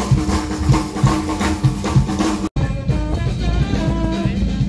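Music with a steady, drum-heavy beat that cuts off abruptly about two and a half seconds in. A different piece with guitar takes over.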